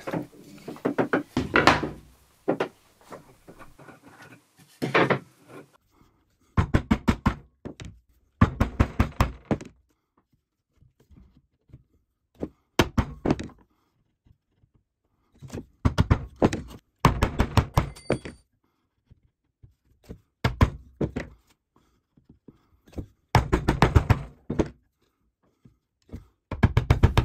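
Bench chisel chopping the waste out between dovetail pins in MDF and plywood, guided down a clamped MDF block. It comes as short bursts of quick sharp knocks, about eight to ten a second, with pauses between the bursts.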